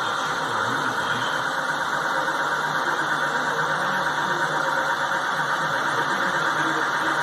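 Steady mechanical running noise with a low hum from the machinery driving a restored A-26 Invader's wing flaps as they move through their travel during a function test.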